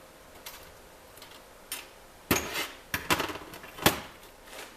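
Steel manual-gearbox parts (synchro rings, springs, stoppers on the shaft) clicking and clinking as they are handled and set down during disassembly: a few light clicks, then a quick run of clinks in the second half with one sharp metallic knock near the end.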